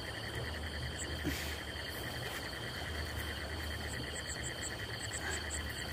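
Crickets and other insects chirring steadily in several high trilling tones, with a run of short, sharp high chirps repeating in the second half, over a low steady rumble.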